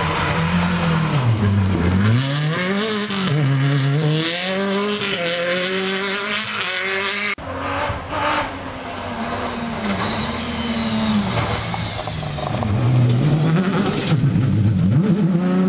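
Rally cars at full attack on a dirt stage, engines revving hard up and down through gear changes and lifts. The sound breaks off suddenly about seven seconds in and picks up on a second car.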